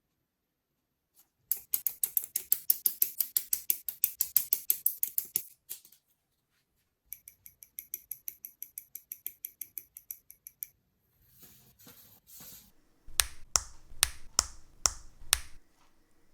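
Small plastic clicks in two quick, even runs, a short hiss, then six sharp snaps with light thuds: plastic model kit parts being handled and snapped together.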